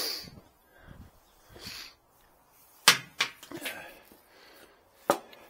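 A few sharp knocks from objects being handled and set down: a loud knock about three seconds in, two smaller ones just after, and another sharp knock near the end.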